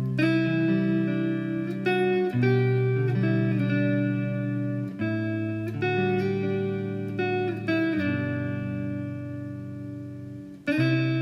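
Background music: plucked guitar notes over a steady bass line, changing chord every second or two.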